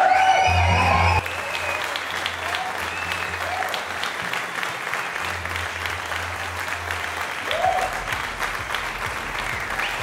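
Audience applauding with dense, continuous clapping, over music. A voice is heard briefly in the first second before the clapping carries on a little quieter.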